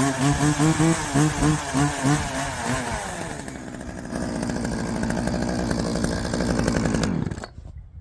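Two-stroke chainsaw engine revving up and down in quick pulses, then running more evenly at a lower pitch. It shuts off about seven seconds in and winds down.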